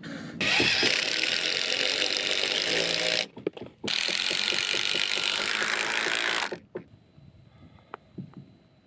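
A Ryobi cordless driver drives screws through a steel corner bracket into timber, in two runs of about three seconds each with a rapid rattling hum. A few faint clicks of handling follow near the end.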